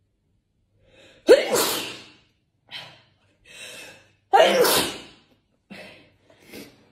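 A woman sneezes twice, about three seconds apart, set off by a nasal swab in her nose. Short, fainter gasping breaths come before, between and after the sneezes.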